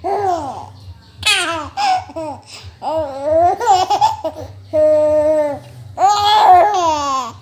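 A young child laughing hard in a string of high-pitched squeals, with a long, steady held squeal about five seconds in and a loud squealing laugh near the end.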